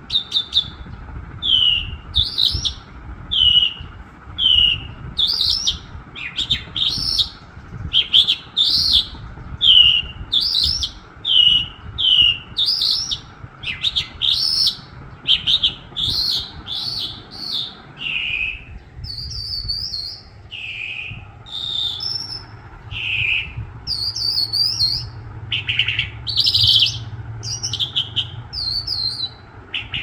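A caged songbird giving short, clear chirping notes over and over, about one or two a second, some of them sliding downward in pitch.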